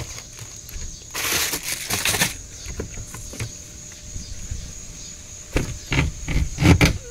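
A corrugated plastic hose scrapes across the fiberglass deck about a second in, then a plastic deck hatch lid knocks and clunks several times near the end as it is unlatched and lifted. Insects chirr steadily throughout.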